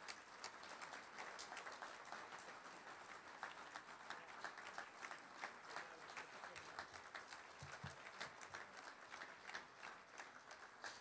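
Audience applauding: a steady patter of many people clapping, faint.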